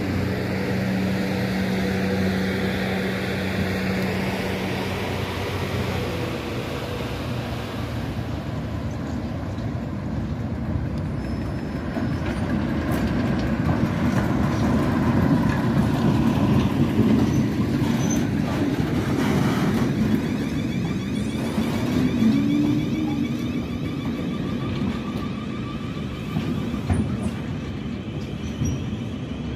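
Freight train led by a Class 08 diesel shunter rolling slowly past. A steady diesel engine hum in the first few seconds gives way to the rumble of open box wagons rolling by, with wheels clicking over rail joints.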